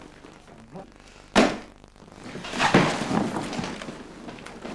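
A single sharp thud about a second and a half in, like a door slamming or a heavy knock, followed by a few seconds of scuffling and rustling noise.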